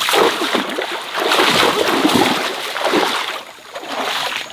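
Water splashing and sloshing in a stream, irregular and continuous, heaviest in the middle and easing briefly near the end.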